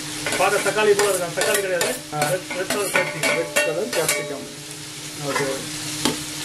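Sliced bell peppers tipped from a metal bowl into a steel pot of onions and capsicum sautéing in oil: frying sizzle with repeated clatter and squeaky scraping of metal on metal, over a steady low hum.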